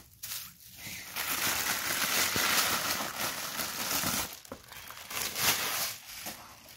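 Paper packing crinkling and rustling as it is handled and pulled out of a gift box: honeycomb kraft-paper wrap and white tissue paper. The rustling is loudest for about three seconds from a second in, with another short rustle about five seconds in.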